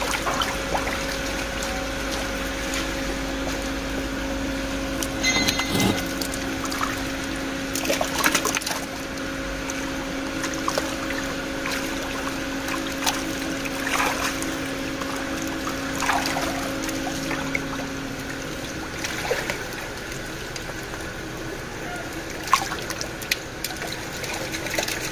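Water sloshing and trickling in plastic tubs as a mesh catfish-sorting cylinder is worked through them, with occasional splashes. A steady low hum runs underneath and stops about three-quarters of the way through.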